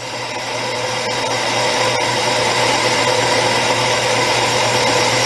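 Atlas 10-inch lathe running with a homemade boring bar taking a second cut inside a cast iron motorcycle cylinder bore: a steady machining noise with a few constant tones, growing gradually louder.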